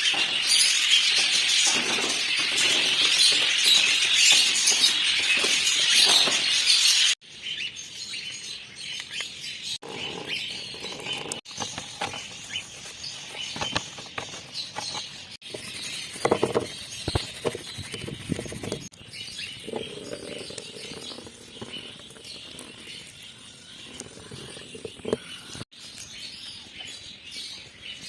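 Many cage birds chirping in a dense, loud chatter for about the first seven seconds. After a sudden cut the chirping goes quieter and sparser, with scattered clicks and knocks and several more abrupt cuts.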